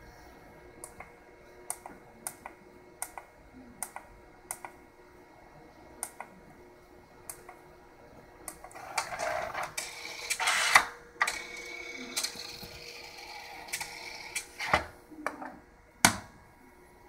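The internal tape-handling mechanism of an ADIC FastStor 2 tape autoloader running with its cover off. First comes a series of sharp plastic ticks, about two a second. It then changes to several seconds of motor whirring and grinding with loud clacks, and ends with two sharp clacks near the end.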